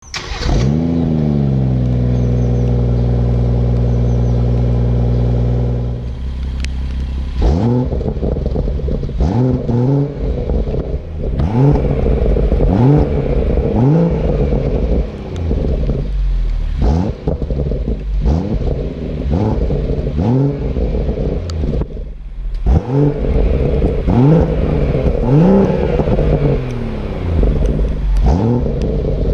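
BMW M140i's 3.0-litre turbocharged straight-six starting up with a flare of revs that falls back to a steady idle, then blipped over and over, each rev rising and dropping quickly, with crackles from the exhaust on the overrun.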